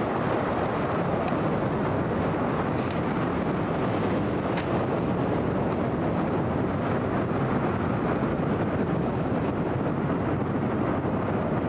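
Steady rushing roar of a large tornado and its wind, picked up on a home video camera's microphone, with a few faint clicks in it.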